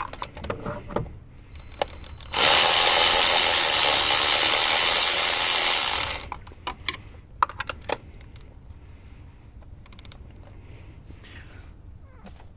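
Scattered clicks and clinks of tools being handled, then a loud, steady rush from a tool running for about three and a half seconds that cuts off abruptly, followed by more clicks.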